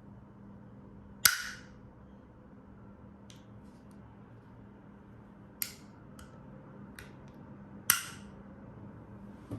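Gas blowback airsoft pistol (KJW KP-18, a Glock 18 replica) fired twice in single shots about six and a half seconds apart, each a sharp crack with a short tail. Lighter clicks come in between.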